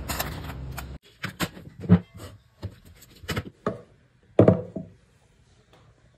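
Objects being handled and set down on a tabletop: a string of separate knocks and taps, the loudest about two seconds in and a cluster around four and a half seconds, then quiet.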